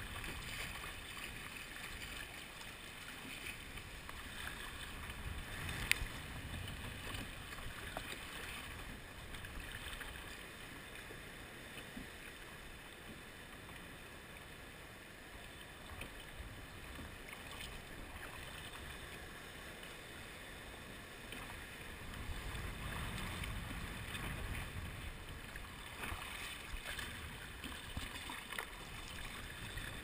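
Sea water splashing and sloshing around a plastic sit-on-top kayak as it is paddled through choppy sea. There is a single sharp knock about six seconds in, and a low rumble swells about two-thirds of the way through.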